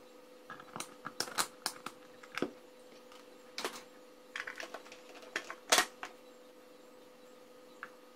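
Irregular light clicks and taps of tools and small parts being handled on a workbench, the loudest knock just before six seconds in, over a faint steady hum.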